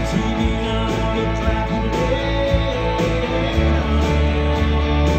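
A live band playing a country-rock song, with guitars to the fore over a steady bass.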